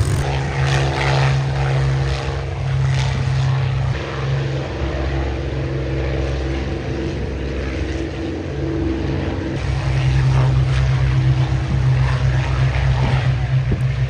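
Piston-engined propeller aircraft flying past with a steady engine drone, loudest at the start and again from about ten seconds in, over wind noise on the microphone.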